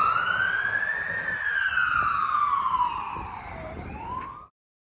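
Emergency vehicle siren wailing as the vehicle pulls away. The pitch climbs to a high peak about a second in, falls slowly over the next two and a half seconds, and starts rising again before cutting off suddenly near the end.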